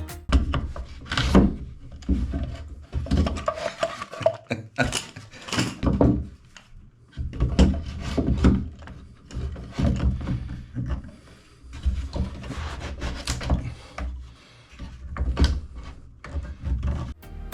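Wooden layout platform sections being handled and fitted together: irregular knocks and thuds of wood on wood, with scraping between them.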